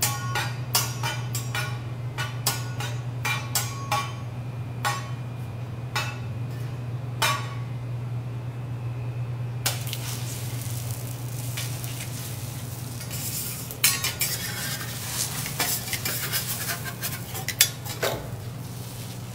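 A metal teppanyaki spatula gives short ringing clinks, about two a second, as a raw egg is tossed and caught on it for the first seven seconds or so. From about ten seconds in, an egg cracked onto the hot steel griddle sizzles as it fries, with a few sharp knocks of the spatula on the plate. A steady low hum runs underneath throughout.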